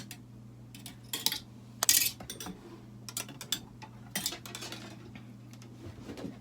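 Bale wire being handled and bent by hand, giving a series of metallic clinks and scrapes, the loudest about two seconds in.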